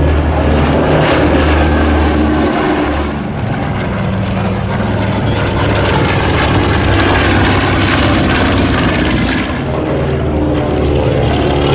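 World War II piston warbirds flying past one after another, their radial engines and propellers droning loudly: first a four-engined B-17 Flying Fortress, then a twin-engined B-25 Mitchell, then a twin-engined Beech 18. The drone dips briefly about three seconds in and again near the end, as one pass gives way to the next.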